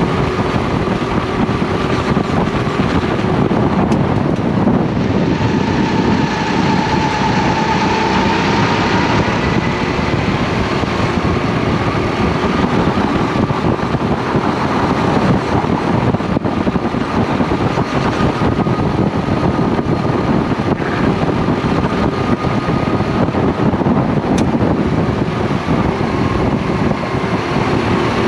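Racing kart engine heard from the driver's seat, running hard with its pitch drifting up and down through the corners. A second kart's engine is heard close by.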